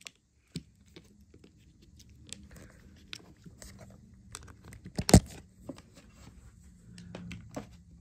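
Handling noise: scattered small clicks and light rustling as a charging cable and small devices are handled, with one loud sharp knock about five seconds in.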